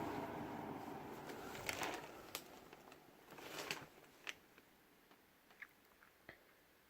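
JCPenney box fan's rush of air fading steadily away as the fan winds down, with a few scattered small clicks and ticks, some sharp and some a brief crackle.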